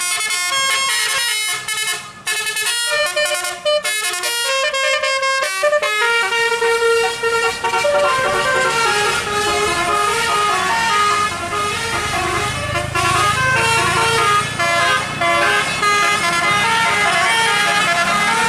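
A tour bus's 'telolet basuri' musical horn playing a melody of quick stepped notes. It starts as choppy short blasts, then from about six seconds in runs on as a continuous tune, with a vehicle engine rumbling underneath.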